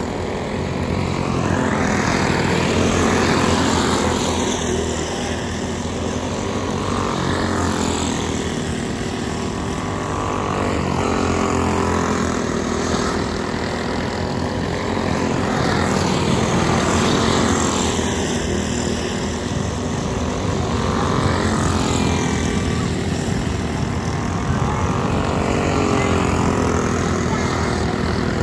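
Racing go-kart engines running hard on a dirt oval. Their pitch dips and climbs again every few seconds, and the sound swells and eases as the karts come round.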